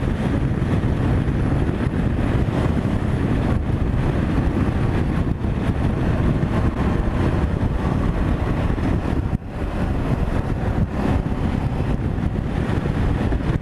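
Motorcycle at highway speed: steady wind rush over the camera microphone mixed with the 2018 Ducati Multistrada 950's L-twin engine and road noise, with a brief dip about nine seconds in.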